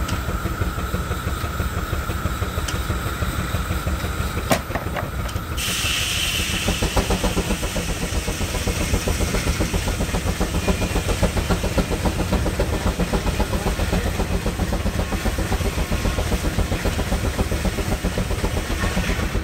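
Steam traction engine running with a fast, steady beat and hissing steam. About five and a half seconds in, a louder rush of steam hiss starts and the beat grows stronger.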